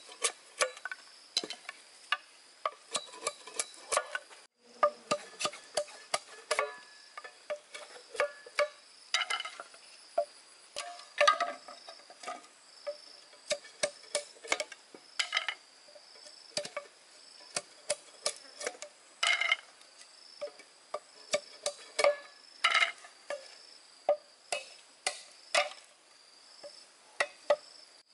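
Insects chirring steadily in a high, faintly pulsing drone, under frequent irregular sharp knocks and clicks from handwork.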